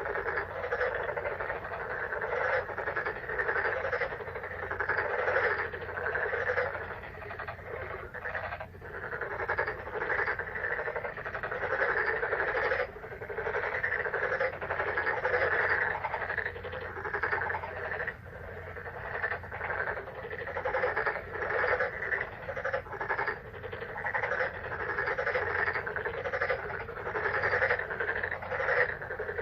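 A dense chorus of many frogs calling, their croaking calls overlapping without pause, over a faint steady low hum.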